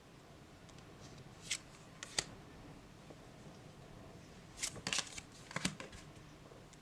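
Tarot cards being handled: a few short, faint card slides and taps, in two small clusters, with a sharper tap about two seconds in.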